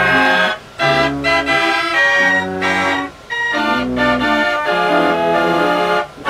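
Fairground organ playing a tune in held chords, with short breaks in the music under a second in, about three seconds in, and near the end.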